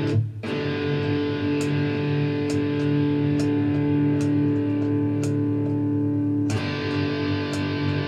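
Electric guitar sounding through a Visa Distortion pedal, with chords ringing on and a sharp break and re-attack about six and a half seconds in. The pedal's newly replaced 3PDT footswitch is being tapped to check that the tone no longer drops out or goes thin and muffled, as it did when the old switch's contacts were dirty.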